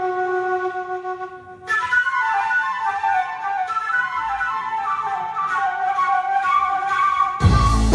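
A flute-toned melody in a progressive rock piece. A held low note gives way, just under two seconds in, to a new phrase of flowing melodic runs, and just before the end the full band comes in with drums and bass.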